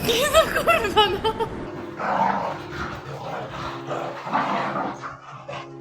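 A dog giving a quick run of short, high-pitched yips in the first second and a half, followed by rougher, noisier vocalising.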